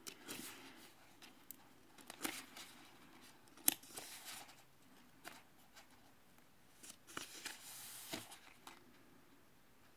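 Paperback book pages being turned by hand: several separate short papery swishes and rustles, with a longer rustle near the end.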